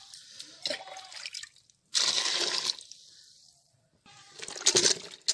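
Water splashing and pouring over chopped bottle gourd in an aluminium pot, loudest for about a second from two seconds in. Near the end a hand stirs the wet pieces with short sloshing bursts.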